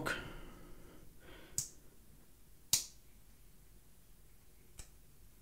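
Slipjoint pocketknife blades, an Esnyx Beer Buster Junior's and a Jack Wolf Little Bro Jack's, being worked open and shut so that the backspring snaps each blade into place. This is the knives' walk and talk. Three sharp clicks: one about a second and a half in, a louder one about a second later, and a faint one near the end.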